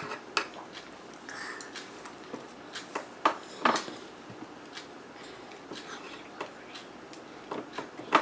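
Spoons clicking and scraping against sundae dishes while ice cream is eaten: scattered irregular taps, a few louder ones about three seconds in and near the end.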